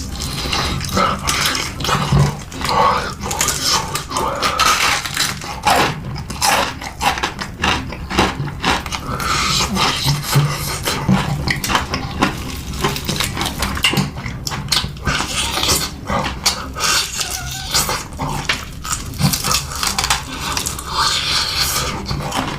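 Close-miked eating: irregular wet chewing and smacking of spicy noodles and chicken, many quick mouth clicks in an uneven rhythm.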